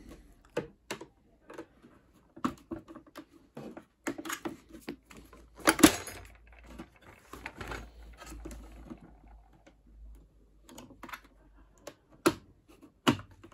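Scattered plastic clicks and knocks from a washing machine's door trim ring and its snap-on tabs being worked with fingers and a screwdriver. One louder knock comes about six seconds in.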